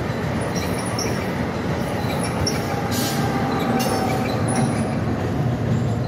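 New Jersey Transit electric commuter train of multilevel coaches running past at speed on the Northeast Corridor: a steady, loud rumble of steel wheels on rail, with faint high-pitched wheel squeal here and there.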